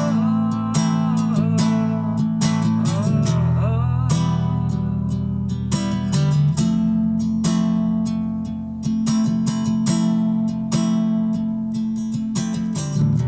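Nylon-string acoustic guitar played in a slow ambient style: repeated strummed and plucked chords over held low notes, with a wavering higher melody line over the first few seconds.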